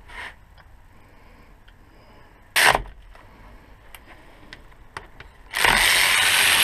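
Ratchet torque wrench turning bolts as they are tightened toward 65 newton metres: a short rasp of the ratchet, then about a second of louder, dense ratcheting near the end.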